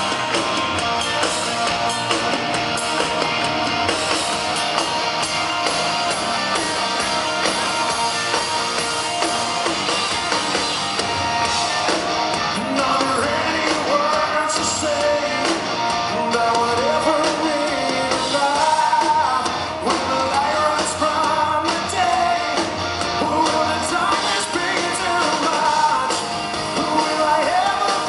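Live rock band playing at full volume, electric guitar and drums, with a male lead vocal coming in about halfway through.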